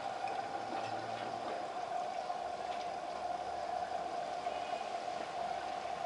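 LG WD12596 11 kg front-loading washing machine running a rinse: water sloshing and splashing in the drum over a steady, even hum, with small scattered ticks.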